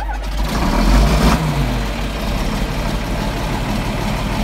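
John Deere 4630 tractor's diesel engine firing up on a cold start, loudest about a second in as it catches, then settling into a steady run. The engine is a stubborn starter in the cold and sometimes needs a shot of ether even with its block heater plugged in.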